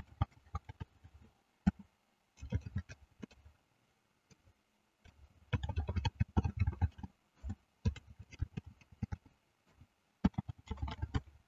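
Computer keyboard typing: quick flurries of keystrokes with short pauses between them.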